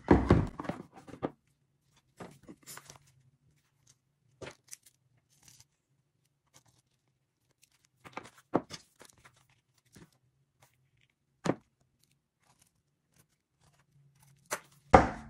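Pen and shoe handling sounds while a pen traces around a Shoe Gummi pad on the sole of a high-heeled shoe: scattered light taps and scrapes, with a louder knock and rustle in the first second.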